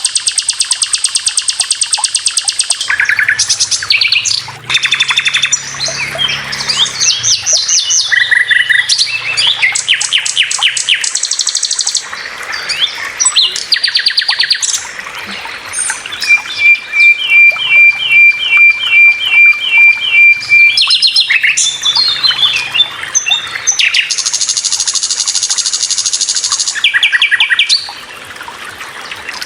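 Several birds singing: a busy mix of high chirps and fast trills, with a run of evenly repeated notes midway.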